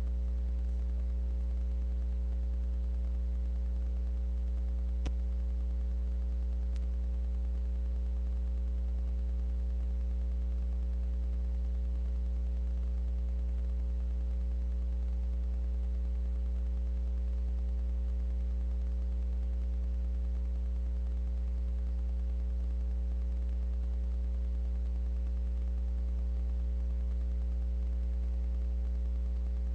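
Steady low electrical hum, with two faint clicks about five and seven seconds in.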